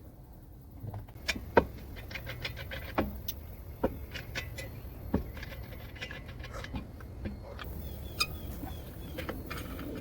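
Irregular clinks and knocks of metal hand tools being handled, with a few louder knocks among them.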